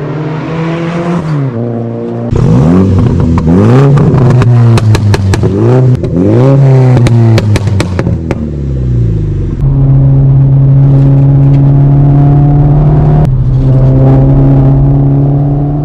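Mini Cooper JCW's turbocharged four-cylinder engine through a Remus straight-pipe exhaust. It holds a steady note, then is revved hard through several rising sweeps, with sharp crackles mixed in. From about ten seconds in it settles into a steady cruising drone.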